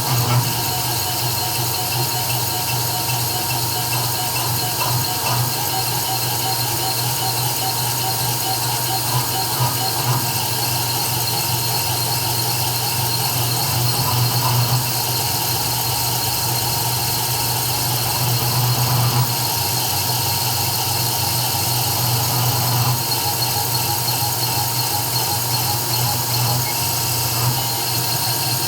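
CNC 3040 desktop router cutting an engraving: a steady whine from the spindle and stepper motors over a low hum, swelling slightly now and then as the tool moves.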